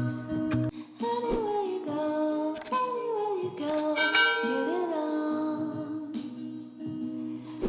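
Background music: a melody sung by a voice that glides between notes, over sustained chords.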